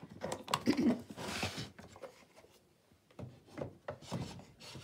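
Craft supplies being handled and put aside on a work table: a series of light taps and knocks, with a short rub across a surface about a second in.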